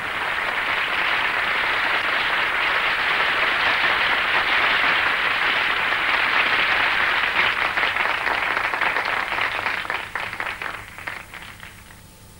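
Concert-hall audience applauding: a full round of clapping that thins into scattered claps and dies away near the end.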